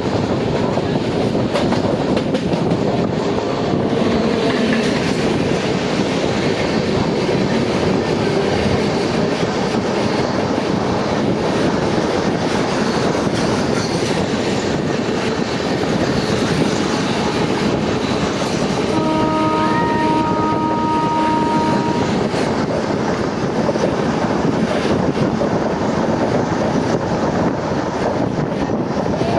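An express passenger train running on rails with steady rumbling wheel clatter. About two-thirds of the way through, a train horn sounds for about three seconds.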